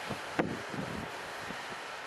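Gusty wind buffeting the microphone in a few short low thumps, the strongest about half a second in, over a steady rushing noise of wind and weather.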